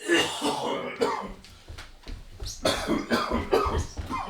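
A man coughing repeatedly, several coughs in a row in a fit that keeps going.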